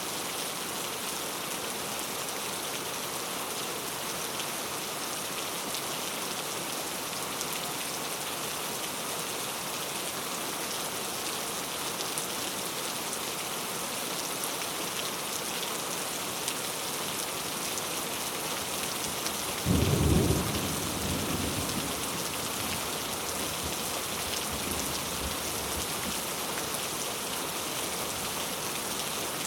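Steady rain falling, an even hiss. About two-thirds of the way through, a sudden low clap of thunder breaks in and rumbles away over a couple of seconds.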